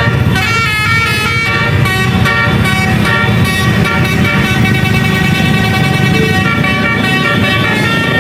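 Bus 'basuri' (telolet) musical horn playing a tune in quick stepped notes over the low rumble of the bus engine.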